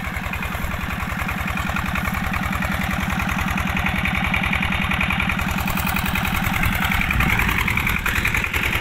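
New single-cylinder diesel engine running with a fast, even beat, driving a belt-driven water pump. It grows slightly louder, and its note changes about seven seconds in.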